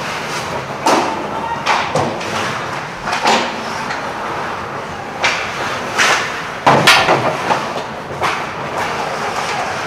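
Ice hockey play in a rink: skates scraping the ice under a run of sharp, irregular knocks and bangs from sticks, puck and boards, the loudest cluster about seven seconds in.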